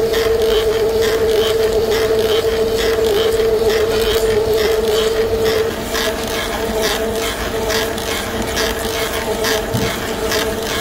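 Metal lathe drilling into a metal workpiece with a large twist drill under flowing coolant: a steady machine hum with regular scraping ticks about twice a second. The hum drops a little about six seconds in.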